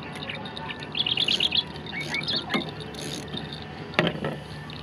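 Small birds chirping, with a quick run of high chirps about a second in and a few more shortly after; a single sharp knock near the end.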